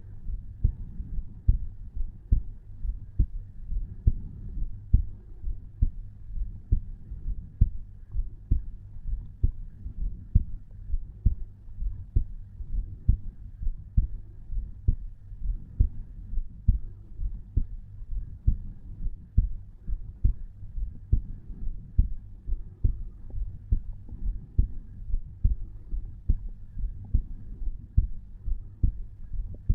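Resting heartbeat of an adult man heard at the tricuspid valve: steady, regular lub-dub thumps at around 60 to 70 beats a minute. The valve sounds are normal.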